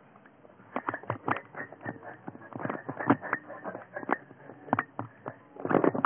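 Irregular series of sharp clicks and knocks, several a second, with a denser cluster near the end.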